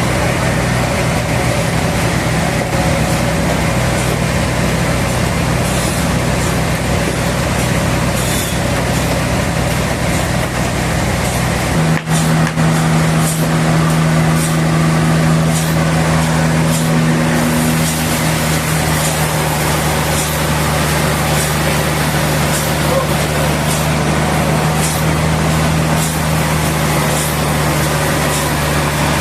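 Heavy machinery engine running steadily with a loud, low drone. About twelve seconds in the sound changes abruptly to a steadier, slightly higher hum, with faint high ticks roughly once a second.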